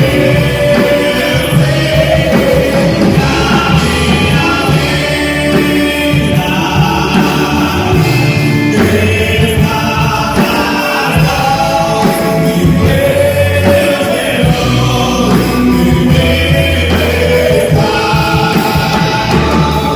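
A live gospel band playing a song, with several voices singing over bass and drums.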